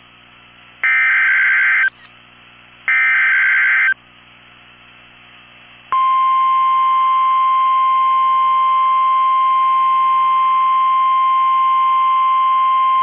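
Emergency Alert System weather radio signal: two one-second bursts of SAME digital header tones, a second apart. About six seconds in, the steady single-pitch 1050 Hz weather radio warning alarm tone starts and holds; it is the attention signal that comes before a new warning message.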